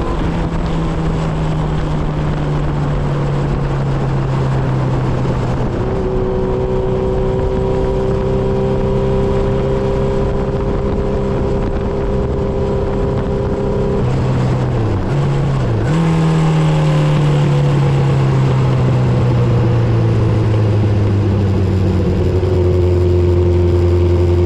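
Kawasaki Z1000 inline-four engine and exhaust pulling steadily at highway speed. About fifteen seconds in, the engine note dips twice and comes back higher, then slowly sinks and steps lower near the end.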